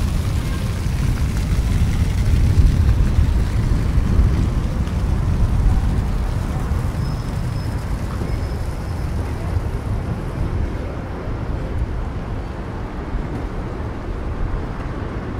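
Steady low rumble of outdoor background noise, easing slightly about two thirds of the way in.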